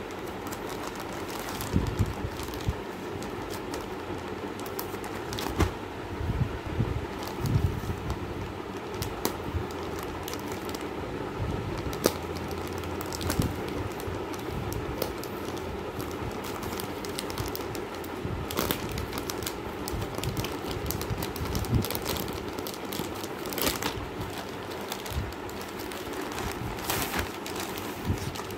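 Clear plastic curtain packaging crinkling and rustling as hands shift and press the packs, in irregular crackles and taps, over a steady background hum.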